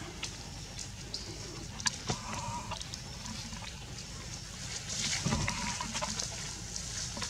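Short animal calls, once about two seconds in and again about five seconds in, among scattered clicks and rustles of leaf litter and a steady high hiss.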